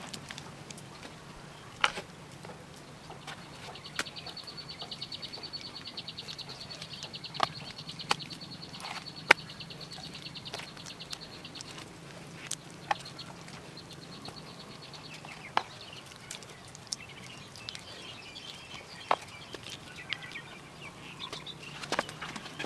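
Hands working wet clay, with scattered sharp pats and slaps as clay is pressed onto a banana-stem mould, the loudest about nine seconds in. A high, rapid trill runs behind it from about four seconds in to about twelve, over a faint steady low hum.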